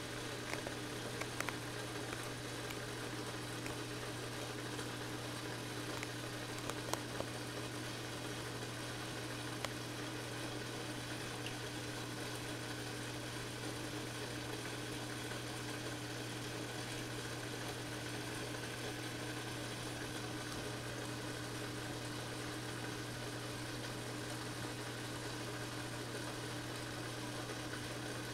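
Steady low hum with a hiss from a saltwater aquarium's pump and filter equipment, running evenly throughout, with a few faint clicks in the first ten seconds.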